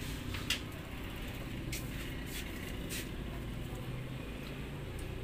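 Lanzones being peeled by hand: a handful of small sharp cracks and clicks as the skin is broken and pulled away, mostly in the first three seconds, over a steady low background rumble.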